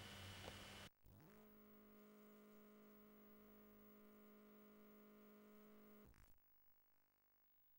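Faint, steady low hum or buzz from a videotape soundtrack. It slides up in pitch as it comes in about a second in and drops out around six seconds in. It goes with the picture breaking into tape noise bars, the sign of a blank or damaged stretch of VHS tape.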